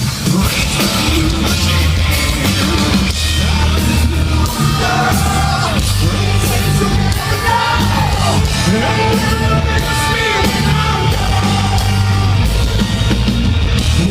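Heavy metal band playing live at concert volume: distorted guitars, bass and drums running steadily, with gliding sung or lead lines over the top.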